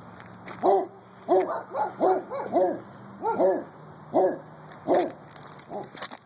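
Dogs barking repeatedly, about ten short barks in quick, uneven succession.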